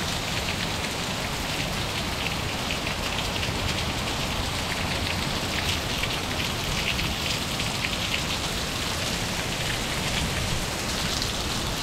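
Heavy rain falling steadily on a paved street and sidewalk: a dense even hiss with the fine patter of individual drops.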